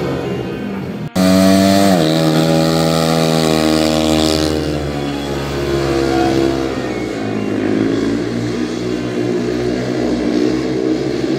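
Speedway motorcycle's 500 cc single-cylinder engine running hard on a dirt track. The sound breaks off sharply about a second in and comes back louder, its pitch dropping and then holding fairly steady as the bike runs on.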